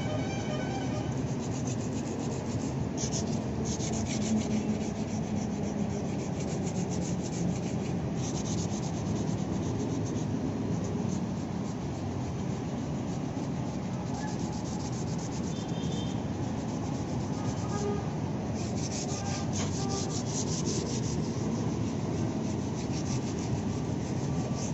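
Sandpaper rubbed by hand over the painted plastic front bumper of a Toyota Innova: quick, scratchy back-and-forth strokes that come in spells of a second or two, several times over.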